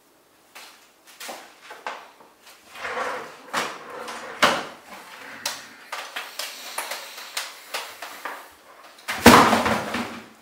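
Things on a stone kitchen countertop being grabbed and lifted in a hurried rummage, including a computer keyboard and its cables, giving a run of irregular knocks, rattles and clatters. A louder clatter comes about a second before the end.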